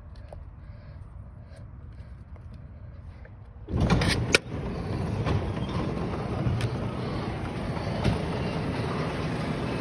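Garage door opener starting up about four seconds in with a sudden loud burst and a sharp click, then running steadily as the door travels open.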